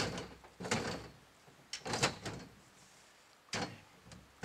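Welded metal tube canopy frame, built from exercise-machine legs, being pushed along and shifting on its pivots: a series of about five clunks and scrapes a second or so apart. The joints are still stiff and sticky from fresh paint.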